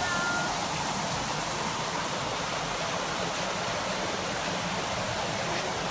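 Steady rush of running water, an even hiss with no change in level.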